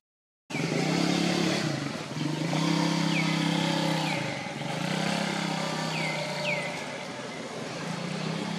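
An engine running in swells of a second or more, dipping between them, with bird chirps that slide down in pitch several times over it.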